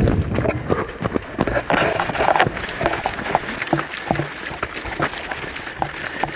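Running footsteps on a dirt and gravel trail: a quick, uneven series of footfalls, with a brief louder rush of noise about two seconds in.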